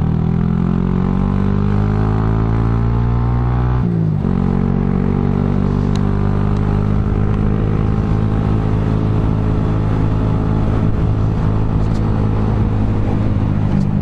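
Honda Grom MSX125's single-cylinder four-stroke engine under way through an aftermarket dual-outlet full exhaust. The engine note climbs steadily, drops sharply at a gear change about four seconds in, then rises again and settles into a steady cruising note. The exhaust sound is not super loud.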